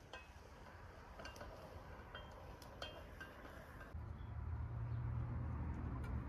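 A few faint, light clinks and taps, like small dishes or utensils knocking together, then a low steady hum from about four seconds in.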